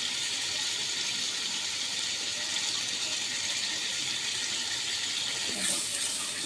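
Butter, garlic and sauces sizzling steadily in a pan on the stove.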